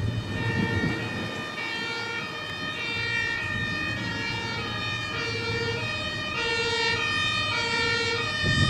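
German two-tone emergency-vehicle siren (Martinshorn, "tatütata") sounding continuously, switching back and forth between its high and low tones, over the low running of a vehicle engine.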